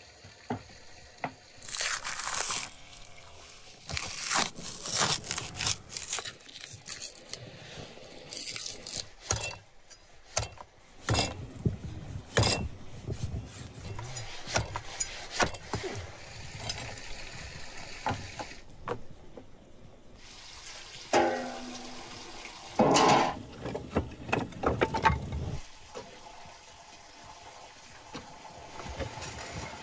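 Irregular handling sounds of food preparation: scrapes, clinks and knocks, with some liquid noises. They are busiest and loudest a little past two-thirds of the way through.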